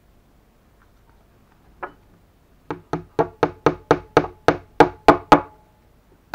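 A single sharp knock, then a quick run of about eleven sharp knocks at roughly four a second, each louder than the last, with one more knock right at the end.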